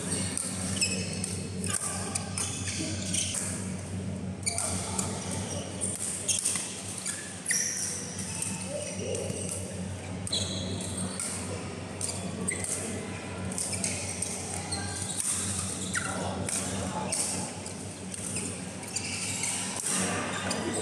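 Badminton rally in a large echoing hall: repeated sharp racket strikes on the shuttlecock and short squeaks of court shoes on the mat, with voices calling and chatting over a steady low hum.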